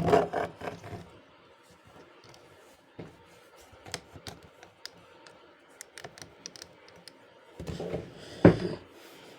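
Keys and touchpad of a folding Bluetooth keyboard being pressed: scattered sharp plastic clicks, with a cluster of handling clatter in the first second and a louder knock of the keyboard being handled near the end.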